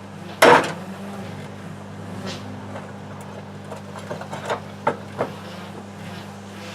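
Microwave oven running with a steady mains hum; about half a second in, a loud sharp bang as its glass turntable plate cracks from the heat, followed a few seconds later by a string of crackles and pops.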